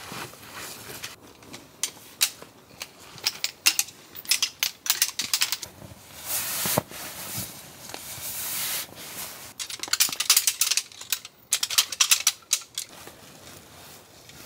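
Nylon fabric of a down sleeping bag and its stuff sack rustling and crinkling, with many sharp crackles and a few longer swishes, as the bag is stuffed into the sack.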